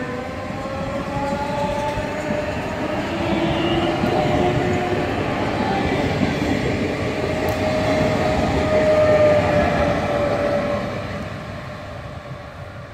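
Renfe class 447 electric commuter train moving past a station platform: the traction motors whine in several tones that climb in pitch over the first few seconds as it gathers speed, over the rumble of wheels on rail. The sound is loudest about nine seconds in, then fades.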